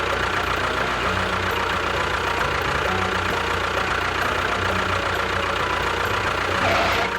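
A small motor running steadily with an even mechanical whir, cutting off abruptly near the end.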